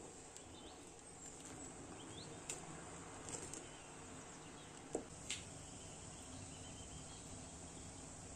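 Pot of plums in syrup simmering with a faint steady hiss, with a few light knocks of a wooden spoon against the stainless-steel pot between about two and five and a half seconds in.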